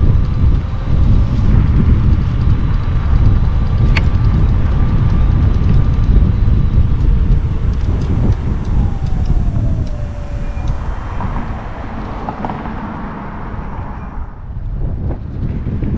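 Riding an electric scooter at speed: heavy wind rumble over the microphone, with a thin whine that holds steady and then falls in pitch about halfway through, as the level eases off.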